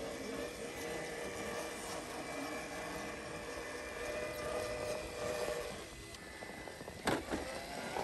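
Cross RC AT6 6x6 rock crawler's electric motor and gear train whining steadily as it crawls over rocks, the pitch wavering slightly and easing off briefly about six seconds in. A sharp knock about seven seconds in.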